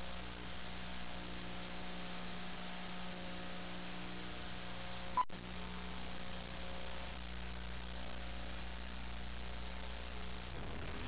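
Steady electrical mains hum with a hiss behind it. About five seconds in comes a single short, high beep, the sync beep of a film countdown leader, followed at once by a split-second dropout.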